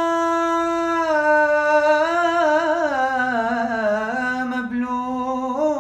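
Male voice singing unaccompanied in Arabic style: a long held note, then a wavering, ornamented run that slides down and settles on a lower held note, rising again near the end.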